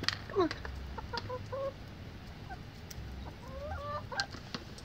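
Backyard chickens clucking: a few short, wavering calls, over light, sharp ticks of beaks pecking at cracked corn.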